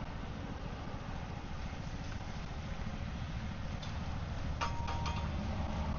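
Truck engine idling steadily, with a few sharp metallic clicks and a brief ring about five seconds in.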